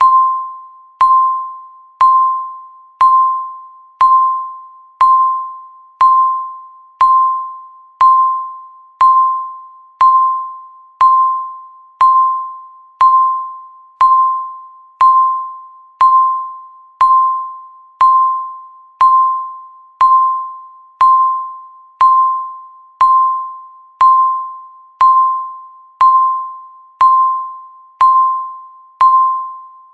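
Countdown timer beeping once every second, one beep for each second left: a single short electronic tone that starts sharply and fades quickly, repeating steadily at the same pitch.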